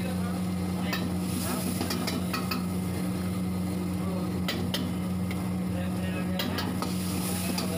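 Stir-frying in a black iron wok over a gas flame: food sizzling while a metal spatula and spoon clank against the wok about a dozen times, irregularly, over a steady low hum.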